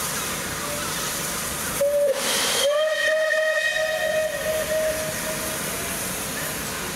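Steam locomotive's whistle. A loud rush of steam about two seconds in runs straight into a long, steady whistle of about three seconds, which then tails off. A steady hiss of steam runs under it.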